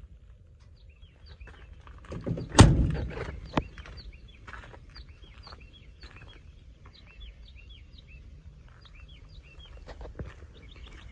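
A truck's cab door is slammed shut once about two and a half seconds in, with a smaller knock a second later. Small birds chirp over and over throughout.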